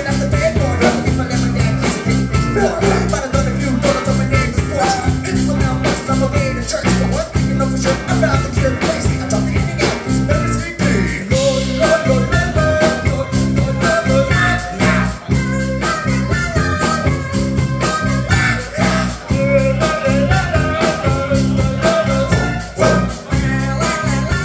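Live rock band playing a song: sung lead vocal over drums with a steady beat, bass guitar and acoustic guitar.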